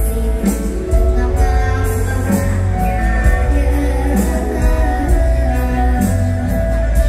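Amplified live mor lam band music with a steady bass beat, regular cymbal-like strokes and held melody notes, with a singing voice.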